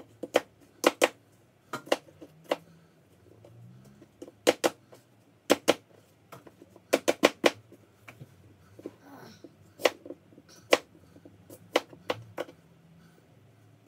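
Kitchen knife cutting apples on a cutting board: irregular sharp knocks of the blade meeting the board, some single and some in quick runs of two to four.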